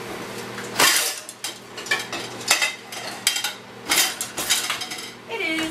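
Dishes, cutlery and a pan clattering and clinking as a pan is taken out of a dishwasher: a series of sharp clanks, the loudest about a second in.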